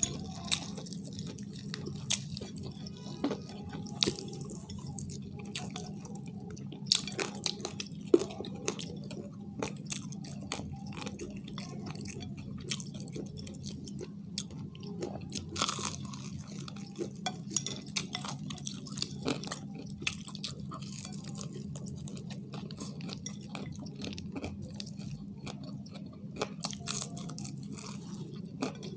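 Fried chicken being chewed and bitten, with irregular short crunches and crackles of the crust. A steady low hum runs underneath.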